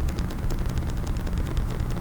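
Fingertips or nails tapping rapidly on a hard case, several crisp taps a second, over a steady low rumble.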